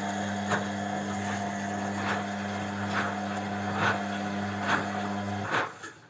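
Indesit front-loading washing machine running a wash: a steady motor hum with a soft knock a little under once a second as the laundry tumbles in the drum. The hum cuts off suddenly about five and a half seconds in.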